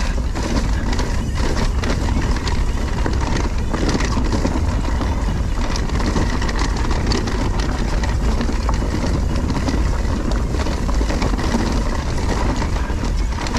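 Wind rumbling over the microphone of an electric mountain bike's handlebar-view camera, mixed with tyres rolling over a dirt singletrack. Frequent clattering knocks from the bike's frame and drivetrain as it rides over bumps.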